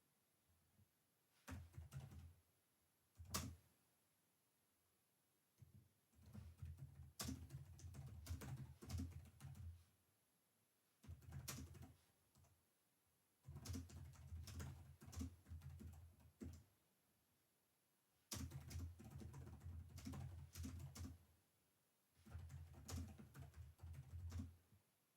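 Typing on a computer keyboard: bursts of rapid keystrokes lasting a few seconds each, broken by short pauses, with one sharper single key click about three seconds in.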